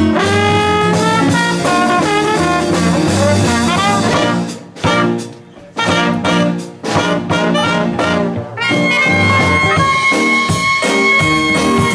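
Traditional jazz band playing live, with trombone and trumpet leading over the rhythm section. The music drops back twice around the middle, and a long high note is held steady from a little past halfway to the end.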